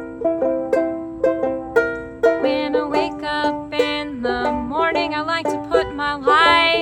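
Banjo-ukulele picking a short chord pattern, joined about two seconds in by a voice singing the opening lines of a folk song over the strumming.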